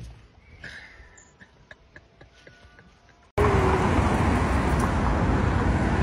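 A few faint small ticks and chirps, then, about three seconds in, a sudden switch to loud, steady traffic noise from a busy city road.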